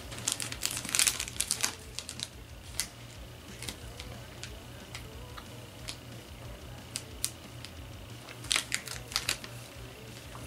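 Plastic and foil snack wrappers crinkling and clicking as they are handled, in quick clusters during the first two seconds and again about eight and a half seconds in, with scattered single clicks between.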